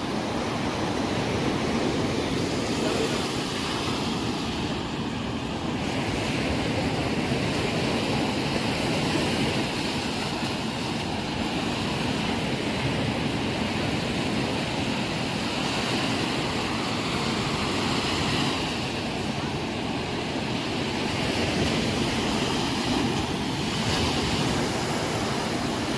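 Sea surf breaking and washing up the beach, a steady rush of noise that swells and eases gently.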